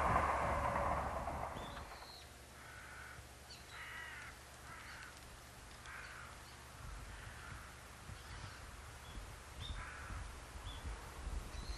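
A passing diesel railcar fades away over the first two seconds. Then a bird calls again and again, short calls about one or two a second.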